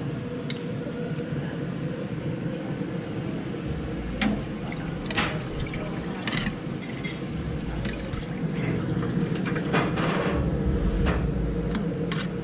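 Beef-rib broth splashing and pouring as it is ladled from a steel pot into serving bowls, with a few sharp clinks of the metal ladle against pot and bowls.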